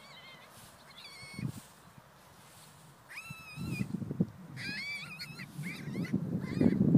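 Rabbit screaming in distress while held by a ferret: repeated short, shrill squeals in clusters. Rustling and knocking from the struggle in the grass grows louder from about halfway.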